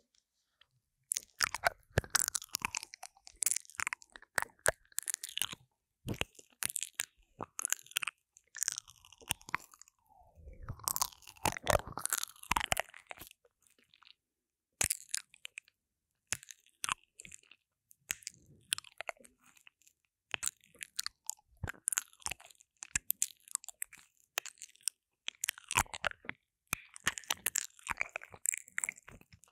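Close wet mouth sounds straight on the silicone ear of a binaural microphone: lip smacks, kisses and nibbling make irregular wet clicks and pops, with a short pause about halfway through.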